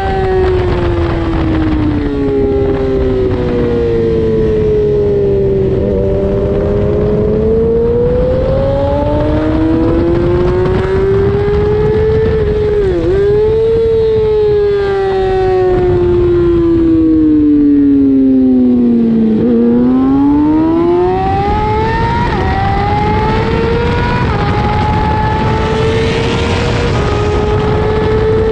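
Race motorcycle engine heard from on the bike at racing speed, its pitch falling as the bike slows for the corners and rising out of them. Near the end it accelerates hard through three quick upshifts, the pitch climbing and dropping back at each shift, with wind rushing throughout.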